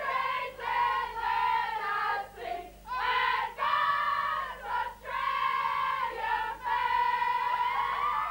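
A group of women singing loudly together, in short phrases with brief breaks at first, then longer held notes in the second half.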